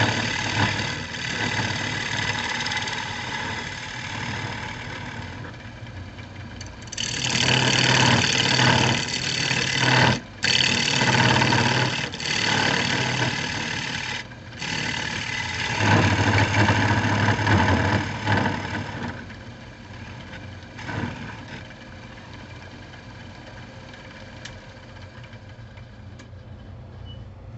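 Wood lathe turning a cherry bowl blank while a gouge cuts it: a loud rough cutting noise in spells, with brief breaks where the tool comes off the wood, over the lathe motor's steady hum. About two-thirds of the way through the cutting stops, leaving only a quieter steady hum.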